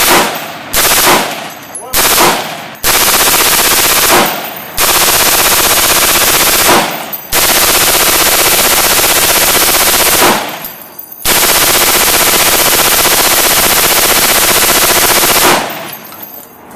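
Michael's Machines MM23e, a belt-fed HK23E clone chambered in 5.56mm, firing full-auto: three short bursts, then four long sustained bursts lasting several seconds each, the last one stopping about a second before the end.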